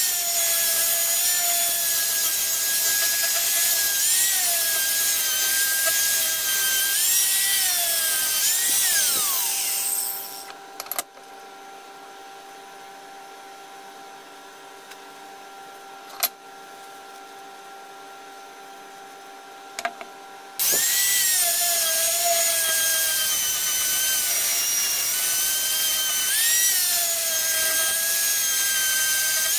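Angle grinder with a flap disc sanding a metal plate, its motor whine dipping and recovering as the disc is pressed into the work. About nine seconds in it is switched off and winds down, leaving a quieter stretch with a single click, then it is running and grinding again for the last nine seconds.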